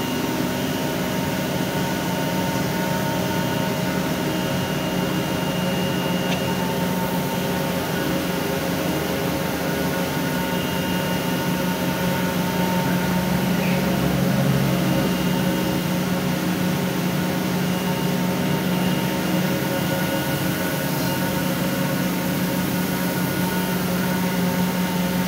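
Plastic pelletizing line running: electric drive motors and the extruder working together in a steady, unchanging hum, with a strong low drone and several steady higher tones over it.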